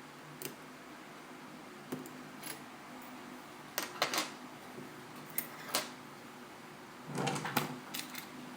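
Scattered small clicks and taps of hand tools on an iPhone 4S's internal parts during disassembly, with a brief cluster of rattling clicks near the end.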